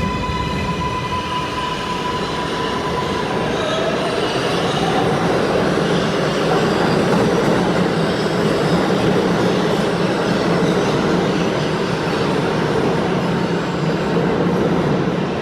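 R188 subway train running, with a steady high-pitched tone for the first three seconds, a rising whine about four seconds in, then a steady rumble of the cars on the track.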